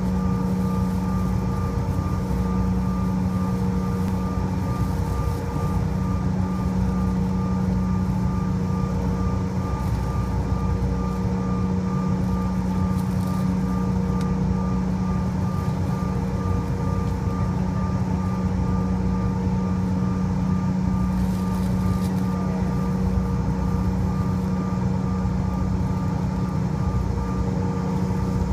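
Aircraft engines heard from inside the passenger cabin: a steady drone with a constant hum over rushing noise.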